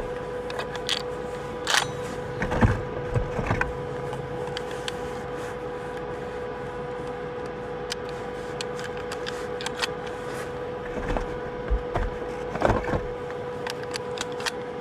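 Snowmobile engine idling with a steady hum, while shells are loaded into a Benelli shotgun and the gun is handled, giving sharp clicks and knocks, loudest about two seconds in, around three seconds in and near the end.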